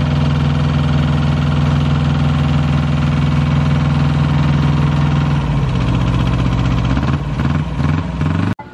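Small on-board engine of a 7¼-inch gauge model Eurostar locomotive running steadily at idle, its note turning uneven a little over halfway through.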